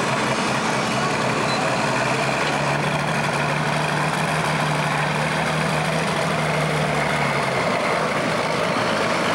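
Diesel engine of a Super Stock pulling tractor running steadily while the tractor sits hooked to the sled, waiting to start its pull.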